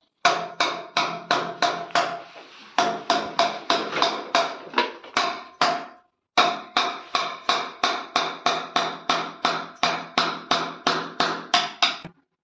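Hammer blows struck in a steady rhythm, about three a second, each with a short metallic ring. The rhythm pauses briefly twice and stops just before the end.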